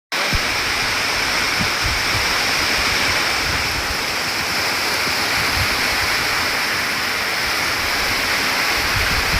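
Steady hiss of heavy rain falling, an even rushing sound with no breaks.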